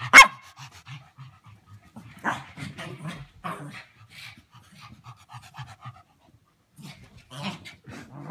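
Dog panting in quick, even breaths during play, with a sharp knock just after the start.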